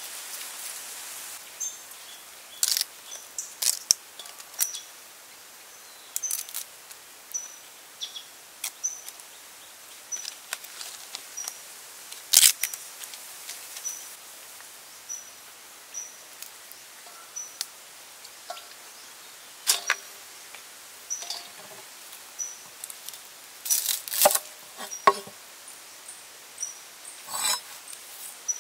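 Hands packing lemongrass stalks and lime leaves into a metal pot around a raw whole chicken: scattered clicks, knocks and rustles against the metal. A short high chirp repeats about once a second in the background for much of the time.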